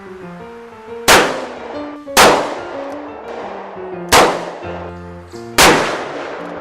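Ragtime piano music, broken four times by loud gunshots one to two seconds apart, each with a short ringing tail.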